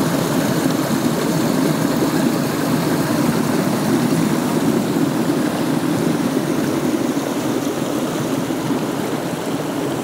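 Mountain stream rushing steadily over rocks: an even, unbroken rush of water.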